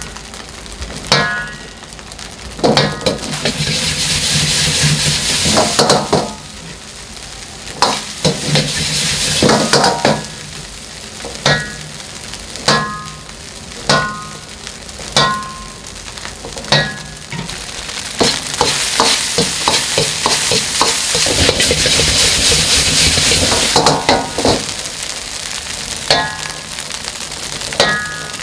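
Egg fried rice sizzling in a wok over high heat as a metal ladle strikes and scrapes the wok over and over, each strike ringing briefly. The sizzle swells twice, and a quick run of taps comes about two-thirds of the way through.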